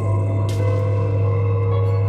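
Ambient drone music: a steady low hum under layered sustained tones. About half a second in a soft struck sound rings in, and a new held tone enters just after it.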